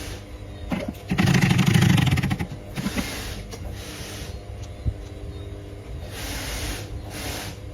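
Double-feed sewing machine stitching in one short run of about a second and a half with a rapid, even stitch rhythm, followed by a few shorter, quieter scraping noises.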